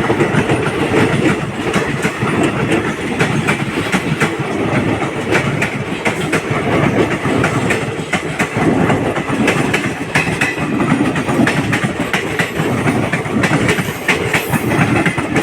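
Ranakpur Express passenger train running, a steady rumble of the coaches with frequent sharp clicks of the wheels clattering over rail joints.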